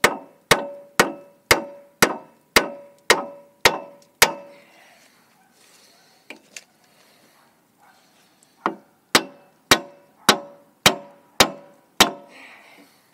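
Hammer blows on a wooden block set on the rod of a Bobcat skid-steer lift cylinder, driving the rod and piston down into the barrel after the fluid pressure has been let off. Nine blows about two a second, a pause with a couple of light knocks, then seven more, each blow leaving a short ring.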